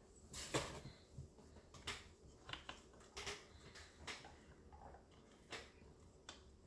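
Faint, scattered clicks and light taps of hands handling and fitting the plastic housing and rear handle of a Stihl MS-250 chainsaw, several separate clicks over a few seconds.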